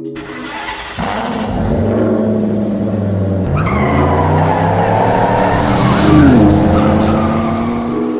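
Racing sound effect of a car engine revving hard and accelerating, its pitch climbing, with tyre squeal from about halfway through. It peaks with a falling glide a little after 6 seconds.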